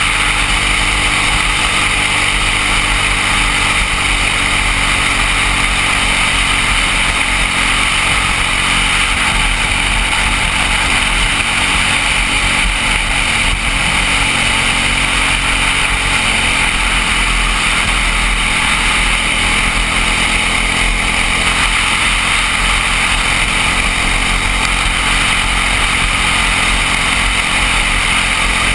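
Briggs & Stratton LO206 single-cylinder four-stroke kart engine running at racing speed, heard from onboard the kart. Its pitch shifts a little as the throttle varies through the corners, under a steady rush of wind noise.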